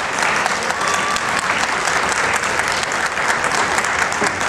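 Large arena audience applauding, a steady dense clapping.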